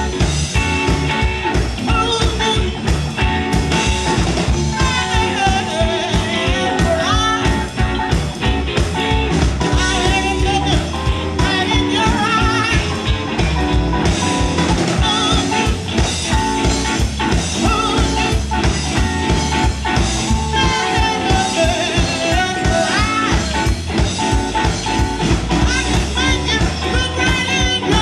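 Electric blues band playing live: two electric guitars over a drum kit, with a steady beat.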